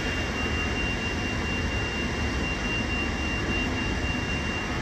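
Steady turbine whine from a parked Boeing 787-9 at the gate: a thin high tone held over a low rumble, with no change in pitch or level.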